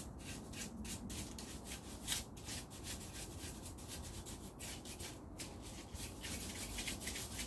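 Stiff-bristled hand brush scrubbing dust off a carved birch-wood figure, bristles scratching over the wood in rapid, repeated back-and-forth strokes.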